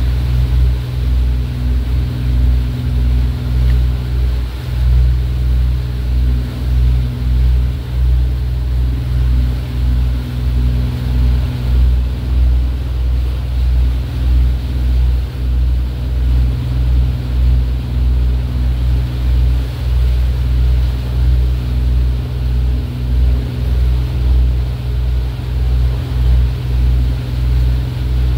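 A boat's engine running steadily at cruising speed, a constant low hum that swells and fades about once a second, with water rushing past under it.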